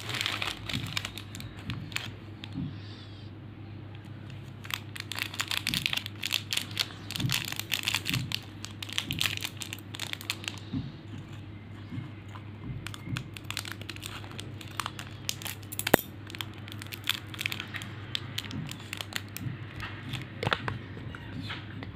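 Shiny plastic hard-candy wrappers crinkling as hands rummage through a pile of them, then a single wrapper crinkled and torn open, with one sharp snap about three-quarters of the way in. A steady low hum runs underneath.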